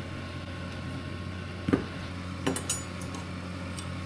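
Metal machine parts clinking and knocking as they are handled on a workbench: a few short clinks in the second half, over a steady low hum.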